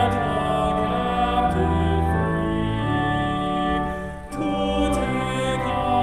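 Church hymn singing over a sustained accompaniment, long-held notes with a brief break about four seconds in.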